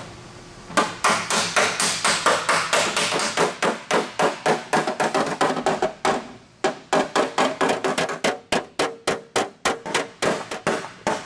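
Steel body hammer striking an aluminum fender panel against a steel dolly held behind it, a rapid run of sharp metallic blows about three or four a second, with a short pause a little past halfway and then quicker blows. This is hammer-and-dolly work knocking out low spots and dents in the aluminum.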